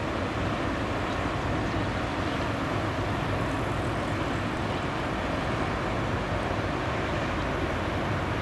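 Passing cargo ship's engine giving a steady low drone.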